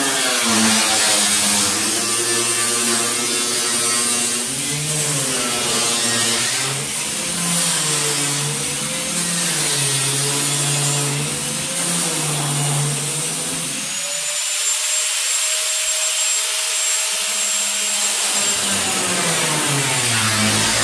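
Small angle grinder with a cutting disc cutting through the corrugated steel wall of a shipping container, its motor whine wavering up and down as the disc works through the steel. About 14 seconds in the pitch rises and holds steady for a few seconds, then drops back into the wavering cut near 18 seconds.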